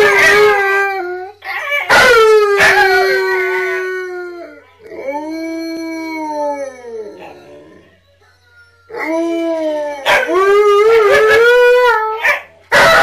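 Alaskan malamute howling in long, wavering notes, with other dogs' howls overlapping; the howling pauses briefly about eight seconds in.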